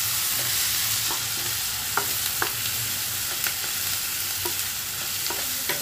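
Chopped onions sizzling in hot oil in a non-stick kadhai as they brown, stirred with a wooden spatula that scrapes and taps the pan every so often.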